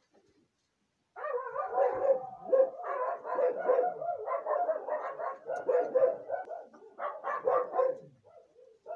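A dog barking rapidly and without a break. It starts about a second in and eases briefly near the end.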